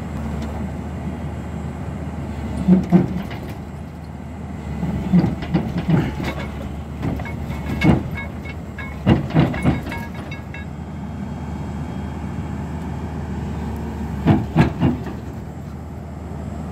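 Hyundai crawler excavator's diesel engine running steadily under load while it crawls up onto a steel flatbed truck deck, with repeated clusters of loud metallic clanks and knocks from its steel tracks and bucket against the deck.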